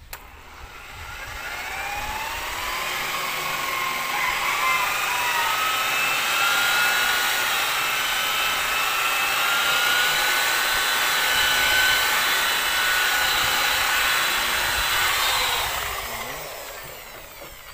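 Electric rotary polisher with a wool buffing pad working rubbing compound into a truck's painted body panel. The motor spins up over the first couple of seconds with a rising whine, runs steadily for about twelve seconds, then winds down near the end.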